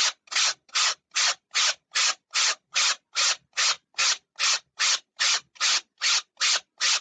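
Block-mounted 120-grit sandpaper rubbed lightly back and forth over a styrofoam model airplane wing, in even strokes about two and a half a second, smoothing the roughness off the foam.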